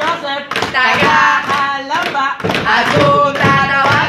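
A voice singing a Tagalog pop song live, with a steady beat of thumps behind it.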